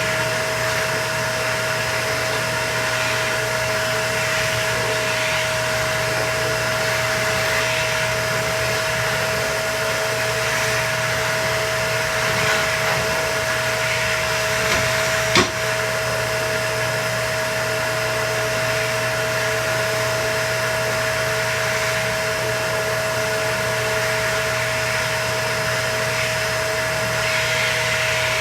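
Vacuum cleaner running steadily with a constant humming tone, and a single sharp knock about halfway through.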